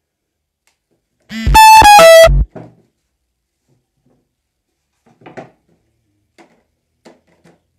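A loud electronic chime of three short notes stepping down in pitch, about a second in, followed by a few faint taps.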